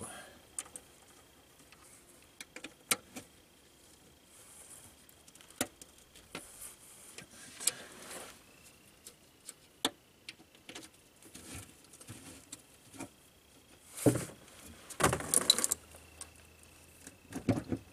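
Scattered small metallic clicks and clinks of hands and a wrench working at a truck's loosened transmission pan and its bolts. Near the end there is a longer burst of handling noise as the pan, still full of transmission fluid, is moved and the fluid sloshes inside it.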